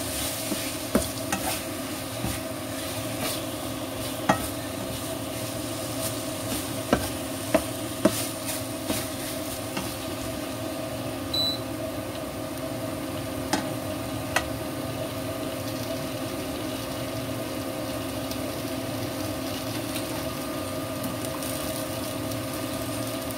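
Chicken wings sizzling as they fry in a non-stick wok over a steady hum, with a slotted spatula scraping and tapping the pan as the pieces are turned during the first several seconds. A couple more taps come around the middle, then only the steady sizzling.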